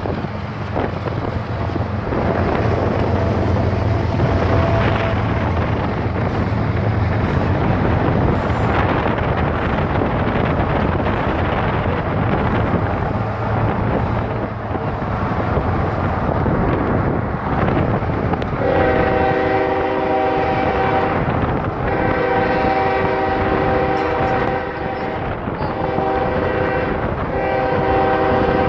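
Freight locomotive's air horn, a chord of several tones, sounding in several long blasts from about two-thirds of the way in. Before that, steady wind and road noise from a car moving alongside the rumbling train.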